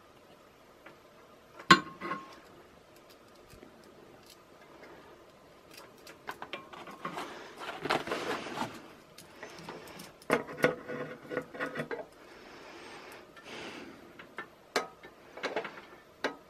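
Small metal clicks and clinks of a little bolt and nut being handled and fitted into a pressed-steel motor brush plate, with a sharp clink about two seconds in as the loudest sound. Rustling about halfway through and again near the end.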